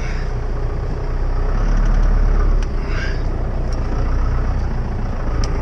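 Ford pickup's engine heard from inside the cab as the truck pulls away, growing louder under load and then dropping off sharply about two and a half seconds in, as at a manual gear shift.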